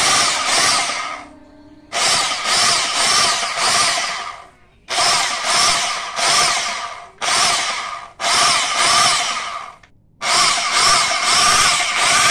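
Hitachi electric jackhammer, its motor's stator and rotor freshly rewound after burning out, running in six short bursts as the trigger is squeezed and released: a test run after the repair.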